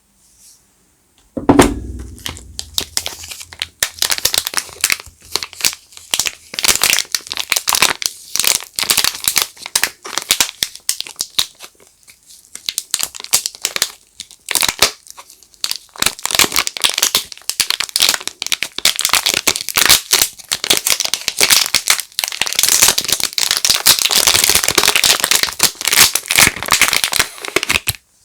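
Soap packaging being unwrapped by hand: dense, irregular crinkling and crackling of the wrapper, with brief pauses now and then. It opens with a sudden loud thump about a second in.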